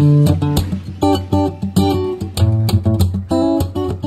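Background music: strummed acoustic guitar in a quick, even rhythm over steady low notes.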